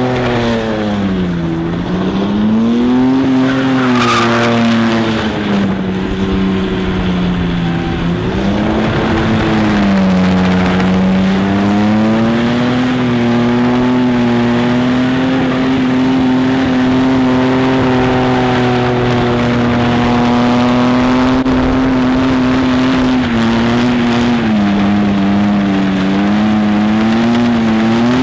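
BMW E36 saloon doing burnout donuts: engine held at high revs with the rear tyres spinning and squealing, its pitch dipping and climbing back several times as the throttle is worked.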